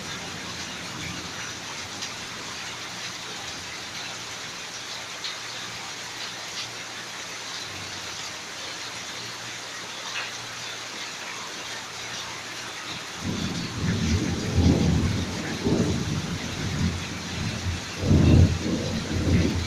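Steady rain falling, with the patter of drops over a constant hiss, as a rumble of thunder fades away at the start. About two-thirds of the way through, thunder rolls in again in repeated low surges, loudest shortly before the end.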